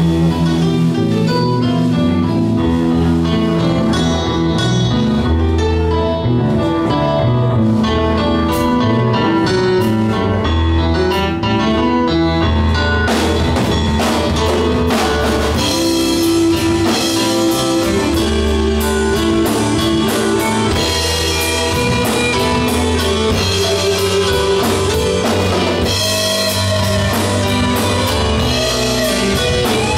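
Live progressive rock band playing, with keyboards, electric guitars, bass and a drum kit, loud and steady.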